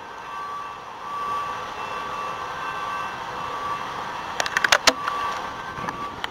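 A hi-rail crane truck's backup alarm sounding over its diesel engine running, with a quick cluster of sharp clanks about three quarters of the way in.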